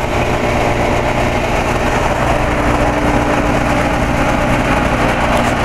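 A 2000 Carrier TECH2000 central air-conditioner condensing unit running: a steady hum with a rush of fan air over it.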